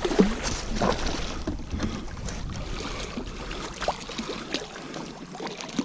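Water splashing irregularly as a hooked channel catfish thrashes at the surface beside a small boat, over a steady wash of wind and water noise.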